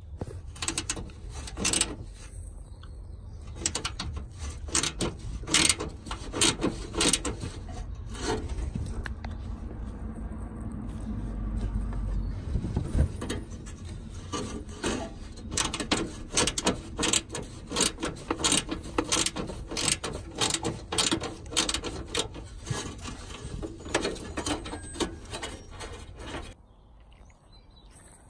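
Ratchet wrench on an extension clicking in quick runs as the bolts under the catalytic converter are undone. The clicking stops shortly before the end.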